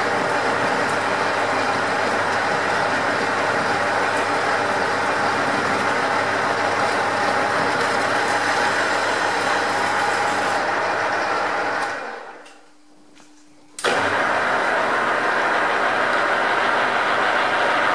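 Metal lathe running with a cutting tool turning a metal workpiece, a steady machining noise. About two-thirds through it fades away for a couple of seconds, then cuts back in suddenly as the boring bar works the other end of the part.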